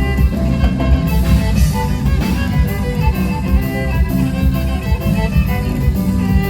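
A band playing live: heavy bass and a steady beat under a violin-like melody of short stepping notes.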